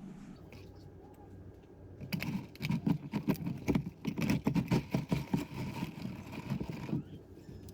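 A rapid, irregular run of clicks and knocks that starts about two seconds in and stops about seven seconds in.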